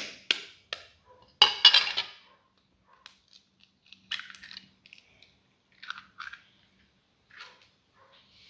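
Raw egg cracked against the edge of a metal spoon over a bowl: a few sharp taps, then a loud crackle of shell breaking about a second and a half in, followed by softer clicks and rustles as the shell is pulled apart and the spoon is set down.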